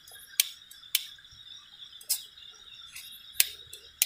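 A hand lighter being struck again and again with sharp single clicks at uneven intervals, about five in all, in repeated attempts to light a torch that will not catch. Crickets chirr steadily underneath.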